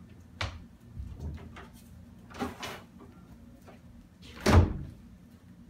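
A wooden door with a metal handle being swung shut, closing with a loud knock about four and a half seconds in, after a few softer knocks and scuffs.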